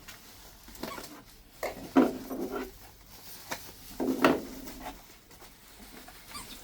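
Cardboard shipping box and its packing being handled and opened: rubbing and scraping with small clicks, loudest twice, about two and four seconds in.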